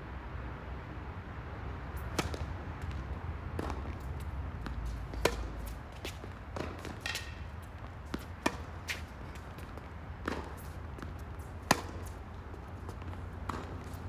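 Tennis rally on an outdoor hard court: sharp pops of racket strings striking the ball alternate with the ball's bounces, about one every second or so. The strongest hits come from the near player. A steady low rumble lies underneath.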